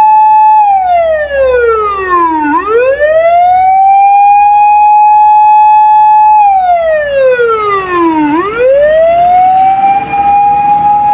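Emergency vehicle siren wailing: a steady high tone that twice slides down over about two seconds and swoops quickly back up to hold again.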